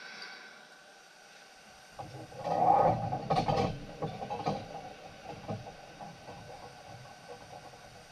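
Handling noise: a loud burst of knocking and rattling about two seconds in, then scattered lighter knocks and clicks.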